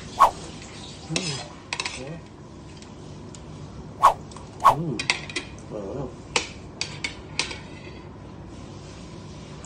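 Metal fork and spoon clinking and scraping against plates and a bowl as people eat, in a string of sharp clinks, thickest from about four to seven and a half seconds in.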